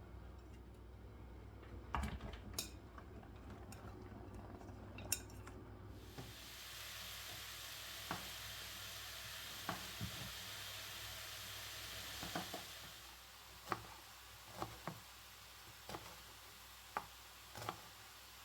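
Light clicks and taps of small objects, with a steady high hiss lasting about seven seconds in the middle.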